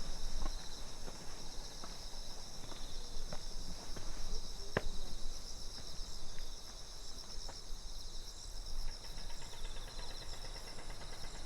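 Crickets and other autumn insects chirping in a steady, high, pulsing chorus. The walker's footsteps tap along at a walking pace beneath it, with one sharper step or knock about five seconds in.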